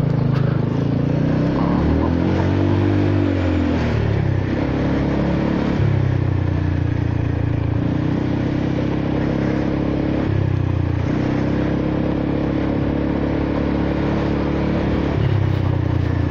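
Honda Forza 300 scooter's single-cylinder engine and exhaust under way, its pitch rising and falling with the throttle: one swell up and back down a few seconds in, then steady running broken by several brief dips as the throttle is eased.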